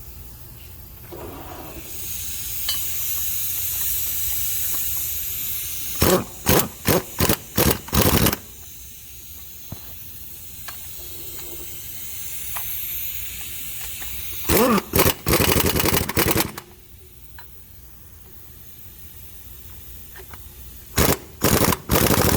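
Impact gun with a 15 mm socket running new bolts down snug into the AC compressor bracket of an International DT466 engine: three bouts of quick rattling bursts, each a couple of seconds long. A steady hiss comes before the first bout.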